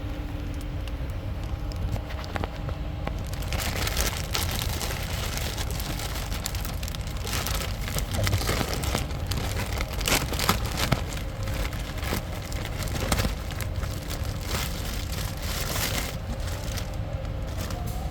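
Crinkling and rustling of the new cabin air filter's plastic packaging as it is handled, with scattered sharp clicks, over a steady low rumble.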